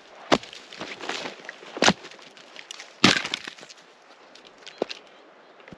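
Freshly sawn log rounds knocking together as they are dropped onto a woodpile: three sharp wooden clunks about a second and a half apart, the third the loudest, and a fainter knock near the end.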